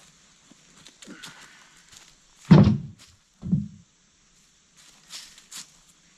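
Two heavy wooden thuds about a second apart, the first louder: dead red oak firewood logs being dropped onto a load on the tractor, with light footsteps and rustling around them.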